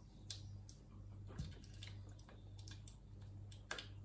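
Faint soft clicks and small wet taps as artichoke hearts are set by hand into a saucepan of warm oil, over a steady low hum. The oil is only warm for confiting, so the pieces go in without sizzling.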